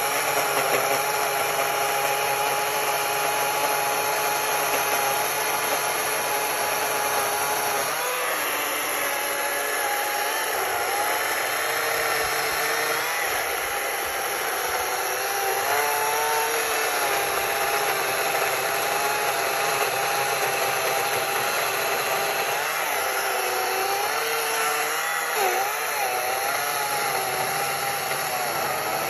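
Atlas 80-volt battery chainsaw cutting into a large log: a steady electric motor whine with the sawing noise of the chain in wood. The whine holds one pitch at first, then dips and wavers from about eight seconds in as the chain loads up in the cut.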